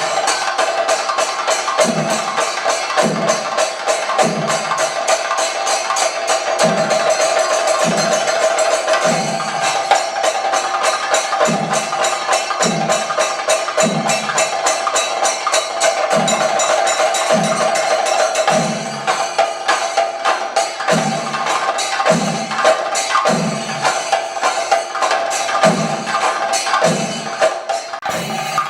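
Thayambaka played on chenda drums: fast, dense stick strokes on the drumheads over deep strokes that pulse about once a second, with ilathalam (small brass hand cymbals) ringing steadily throughout.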